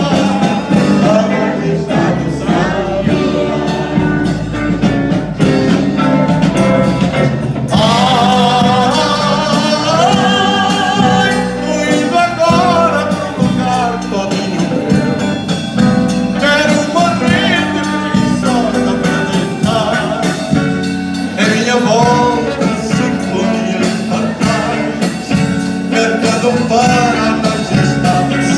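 Live band music with a man singing through the PA, the voice wavering on held notes over the band's electric guitars.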